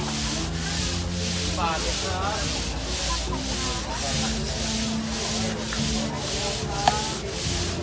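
A steady hiss that pulses about three times a second, over a low mechanical hum, with faint voices behind it. One sharp clink comes near the end.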